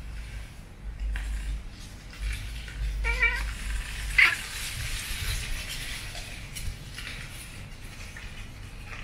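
Siamese cats play-fighting: one gives a short, wavering meow about three seconds in, followed a second later by a short sharp sound, the loudest moment, amid rustling from the scuffle.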